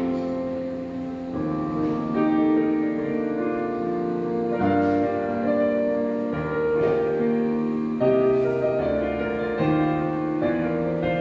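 Piano music: slow chords held and changing every second or two.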